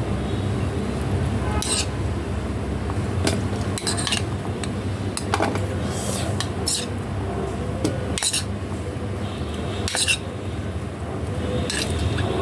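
A metal utensil stirring in a cooking pot, clinking and scraping against it about ten times at irregular intervals, over a steady low hum.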